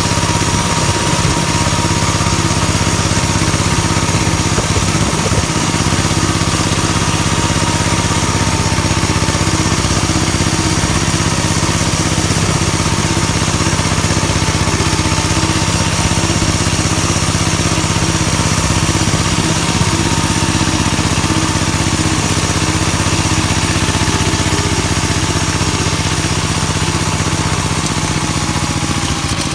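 Engine of a home-built riding tractor converted from a walk-behind tractor, running steadily under load while it drives a rotary tiller through the soil.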